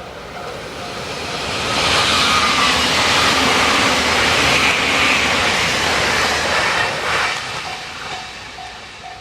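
JR Kyushu electric limited express train passing at speed, its rush of wheel and rail noise swelling to a peak about two seconds in and fading away over the last few seconds. A level-crossing alarm bell dings steadily, about two to three times a second, heard at the start and again near the end.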